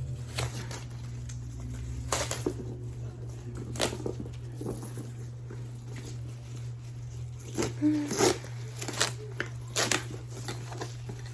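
Rustling and crinkling of packing material being pulled out of a new handbag in uneven handfuls, over a steady low hum.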